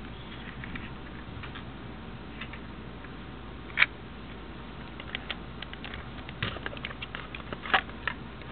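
Irregular small plastic clicks and ticks from Lego parts being handled as a small box is opened: one sharper click about four seconds in, then a quicker run of ticks near the end.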